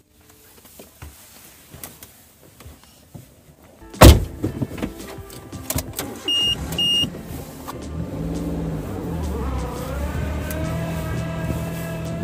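A car door shuts with a loud thump about four seconds in. Two short beeps follow. Then the Maruti Suzuki Alto 800's small three-cylinder petrol engine starts and runs, its pitch rising for a moment before it steadies.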